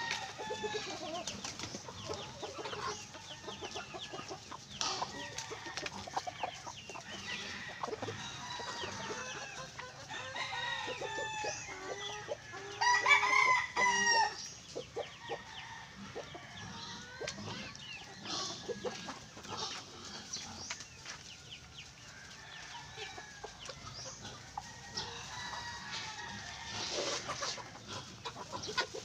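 A flock of free-range chickens clucking continually as they crowd a feed trough. A rooster crows once about halfway through, the loudest sound.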